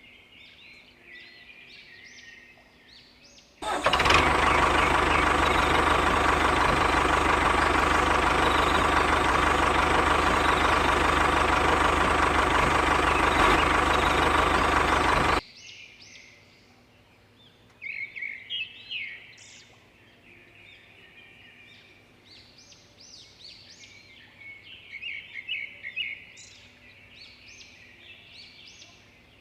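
A small motor running loudly and steadily for about twelve seconds, switched on and off abruptly, with birds chirping before and after.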